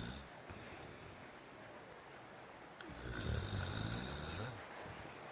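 Snoring sound effect: a short snore at the start and a longer, louder one about three seconds in.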